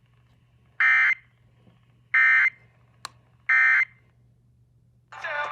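Emergency Alert System end-of-message (EOM) data bursts coming off an FM radio: three short, identical electronic blats about 1.3 s apart, the coded signal that closes an EAS required monthly test. Near the end the station's regular audio comes back on.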